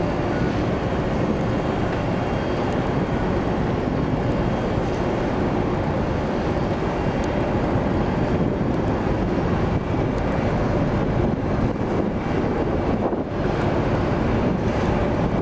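Steady low rumble of a car ferry's diesel engines manoeuvring, mixed with wind noise on the microphone. Faint ticking from the camera lens's focus motor.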